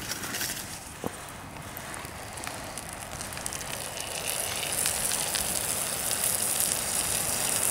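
Campfire burning with occasional sharp crackles, and a high hiss that swells louder about halfway through.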